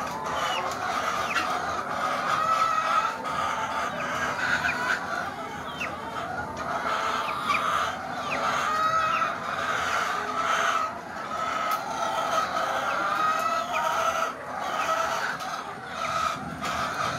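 A flock of caged laying hens clucking continuously, many birds calling over one another.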